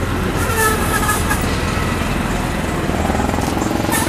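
Steady low rumble of motor vehicles running on a street.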